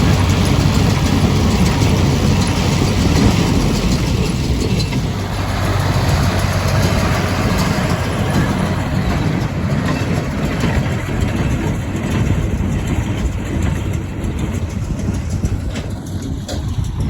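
Ford tractor's diesel engine running steadily with haymaking machinery working, easing off a little in the second half.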